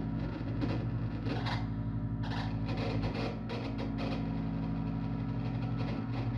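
Improvised noise music: a steady, pulsing low drone with bowed double bass underneath, and irregular bursts of distorted electronic noise over it.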